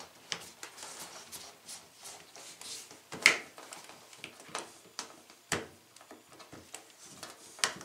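Rubber door boot of a Samsung front-loading washer being worked back onto the rim of the door opening by hand: soft rubbing with scattered light clicks and taps, and three sharper clicks about three, five and a half, and seven and a half seconds in.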